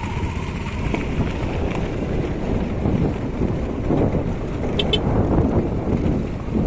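Wind buffeting the microphone during a ride, a low rushing rumble that swells and fades.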